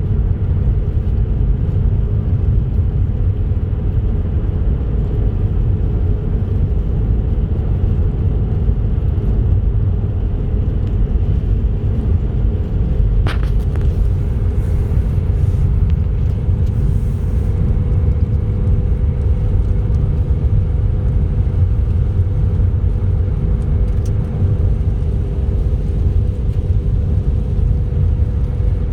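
A car driving at steady speed: a continuous low rumble of tyre and engine noise with a faint steady hum. There is a single short tick about 13 seconds in.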